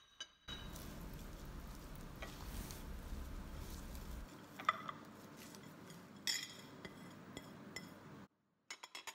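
Light clinks of china plates and bowls and the faint rustle of crisp fried onions being scooped up by hand and dropped onto mashed lentils. The sharpest clinks come about halfway through and again a second and a half later.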